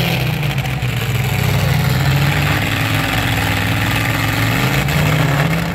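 Engines of several demolition derby pickup trucks running with a steady low drone in the arena.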